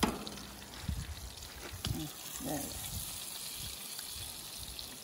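Fish sizzling on a grill, a steady hiss.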